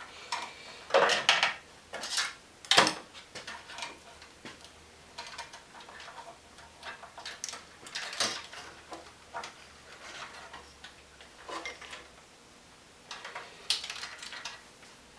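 Scattered clicks, light metallic clinks and rustles of hands routing an electrical wire and handling tools and parts, irregular and of varying loudness, with a louder cluster about two seconds in and another near the end.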